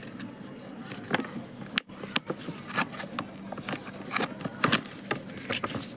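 Packaging of a newly bought water dispenser being handled and opened by hand: irregular crackling and sharp clicks, some louder than others.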